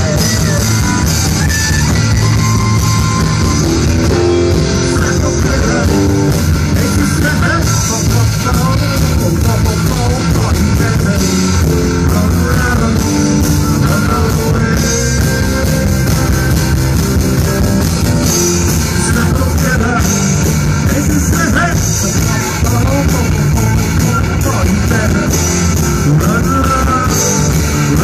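Live rock band playing loud and steady: electric and acoustic guitars over bass and drums.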